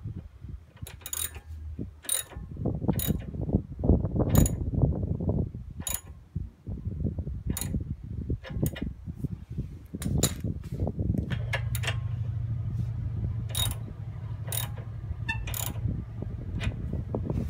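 Metal clicks and clanks of a tie rod end puller being fitted to the steering knuckle and its bolt tightened with a ratchet wrench: a sharp click every second or so over low rattling. A steady low hum comes in about eleven seconds in.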